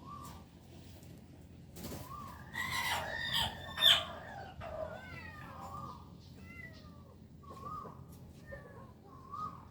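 A series of short, high, rising-and-falling animal calls. A louder noisy clatter comes in the middle, with its sharpest peak about four seconds in.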